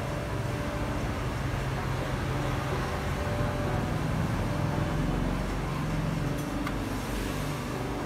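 Steady low rumble of road traffic, with engine drones that shift slowly in pitch and swell a little midway.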